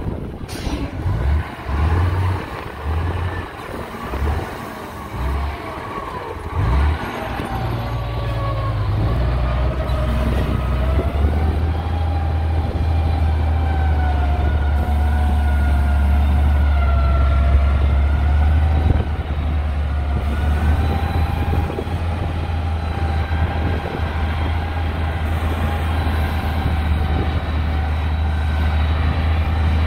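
Komatsu GD625A motor grader's diesel engine running under load as it grades, a steady low drone with a whine that drifts slowly up and down in pitch. Uneven low buffeting over the first several seconds.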